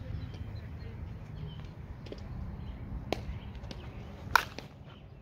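Softball bat striking a pitched softball once, a sharp crack about four and a half seconds in; a fainter click comes about a second before it.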